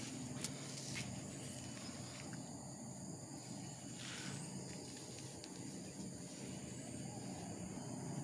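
Faint rustling of mangosteen leaves and branches with a few light knocks, over a steady high insect drone.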